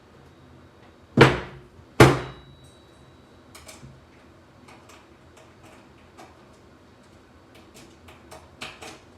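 Two loud knocks a little under a second apart, each ringing briefly, followed by scattered light clicks and taps.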